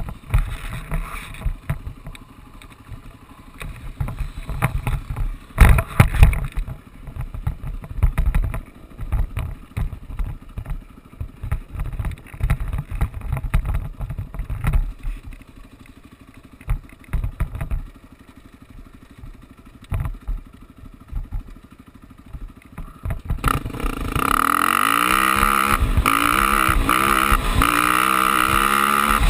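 Wind buffeting the helmet-mounted microphone in irregular low gusts, with the engine only faint beneath. About 23 seconds in, the off-road vehicle's engine comes up loud and steady, its pitch rising and falling several times with throttle and gear changes.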